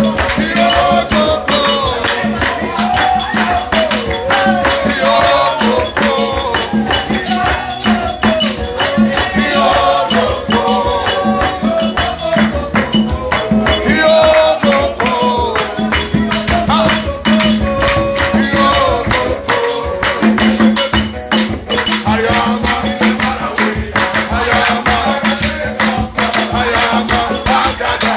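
Worship music with a fast, steady shaker rhythm, a pulsing bass note and a wavering sung melody.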